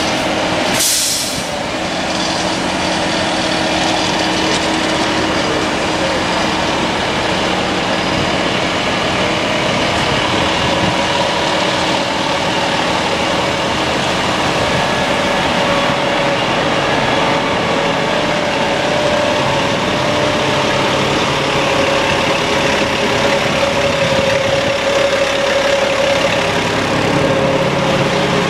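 Concrete mixer truck's diesel engine running steadily at idle, with a brief burst of hiss about a second in.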